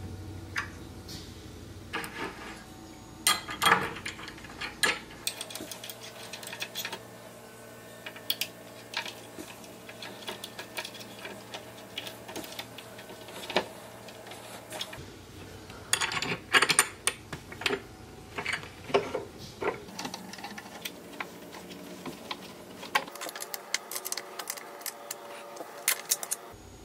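Irregular metallic clicks and taps of a hex key and Allen-head bolts working in a steel bracket on a wooden crib rail as the bolts are turned in, with bursts of quicker clicking in two stretches.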